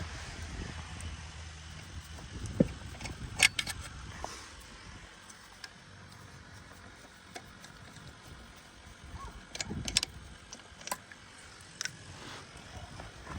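Scattered metallic clinks and knocks of lug nuts and a wheel being handled on a jacked-up pickup, with a low vehicle rumble that fades over the first few seconds.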